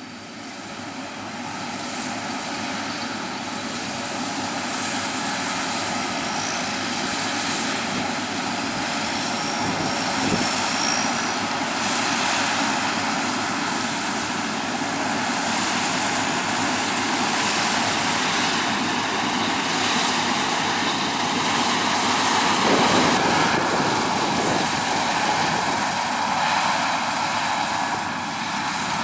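Large diesel farm machinery running steadily, a dense mechanical drone that grows louder over the first few seconds and then holds.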